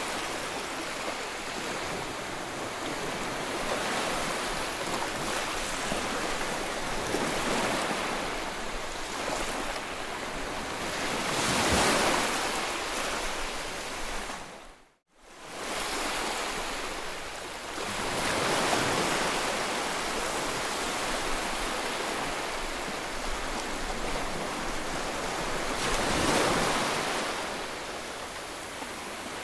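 Small waves washing onto a sandy, rocky shore: a steady wash that swells twice, about twelve seconds in and again near the end. The sound cuts out for a moment about halfway through.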